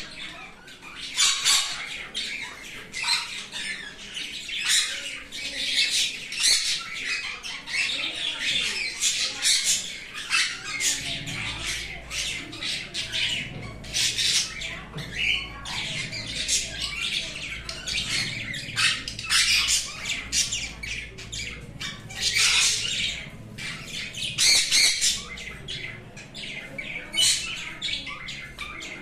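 Sun conure squawking over and over in short, shrill, high-pitched calls, several in quick succession at times.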